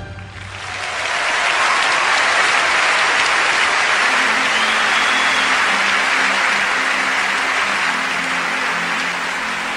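Crowd applause that swells up in the first second, holds steady, then starts to fade near the end, with faint low musical notes underneath from about four seconds in.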